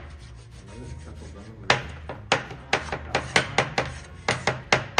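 Kitchen knives chopping raw pork and tomatoes on plastic cutting boards: after a brief pause, an uneven run of sharp knocks starts about a second and a half in, roughly four a second.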